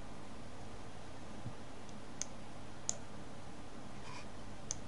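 Three sharp, separate computer mouse clicks over a faint steady hiss.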